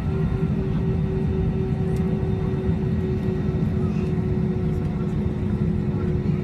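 Airbus A320's jet engines at takeoff power, heard from inside the cabin over the wing as the plane accelerates down the runway: a loud, steady rumble with a steady hum running through it.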